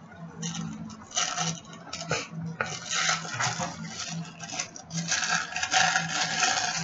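Bubble wrap and packaging being unwrapped by hand: irregular crinkling and rustling with small clicks, coming in clusters.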